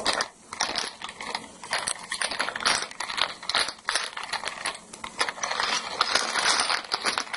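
Small plastic Lego pieces clicking and rattling as they are handled: a quick, irregular run of light clicks.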